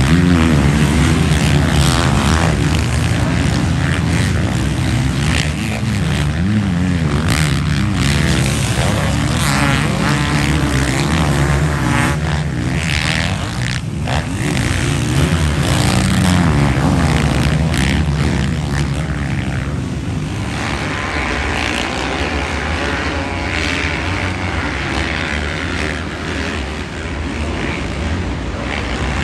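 Several motocross bikes' engines revving and running hard as they race past, a continuous mix of engine notes rising and falling with throttle changes.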